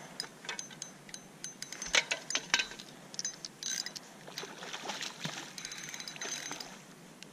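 Brown trout being played on a spinning rod close to the bank: a run of sharp clicks and ticks from the spinning reel, with splashing as the hooked fish thrashes at the surface.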